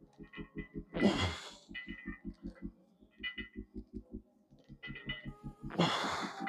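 A man's two hard, forceful exhalations while lifting, one about a second in and one near the end, over a steady low pulse of about five beats a second.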